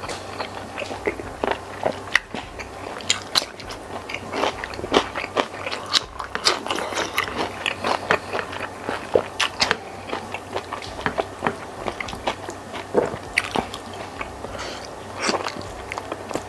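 Close-miked chewing and wet mouth smacks of a person eating squid in sambal with rice, in a dense, irregular run of clicks and smacks.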